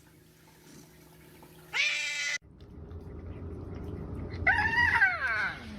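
A cat meowing twice: a short meow about two seconds in, then a longer meow that falls in pitch near the end.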